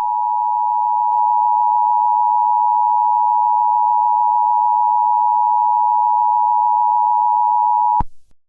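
Emergency Alert System attention signal: a loud, steady two-note electronic alarm tone held for about eight seconds, cutting off suddenly near the end. It is the warning tone that precedes an emergency announcement.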